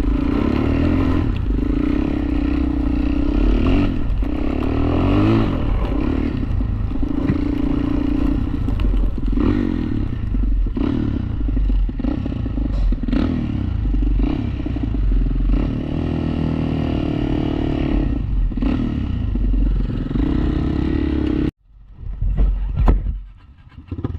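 ATV (quad) engine running steadily while riding, with rattling and clattering over the trail. It cuts off suddenly about 21 seconds in, followed by a brief loud burst of noise.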